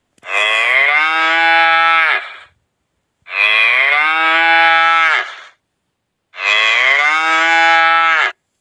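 A cow mooing: three long moos, each about two seconds, identical in shape and spaced about three seconds apart, each dropping in pitch as it ends.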